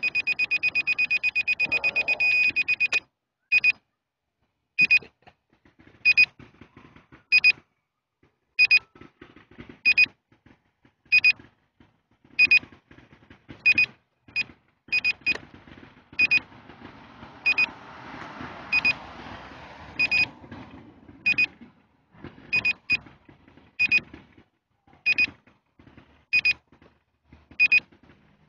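Electronic warning beeps at a steady high pitch: a fast continuous string of beeps for about the first three seconds, then single short beeps repeating about every second and a quarter.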